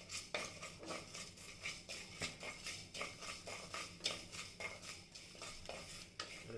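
A metal spoon clinking and scraping against a metal pan and vessels in many short, irregular clicks, several a second.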